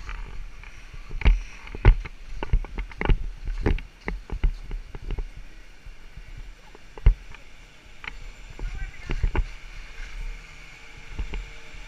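Skis sliding and scraping over groomed snow, with irregular clicks and knocks from ski poles and gear, several of them loud, over a low rumble.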